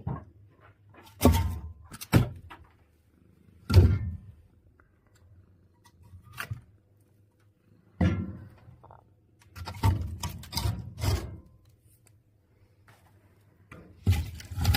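A series of irregular thuds and knocks, some single and some in quick clusters, with short quiet gaps between them.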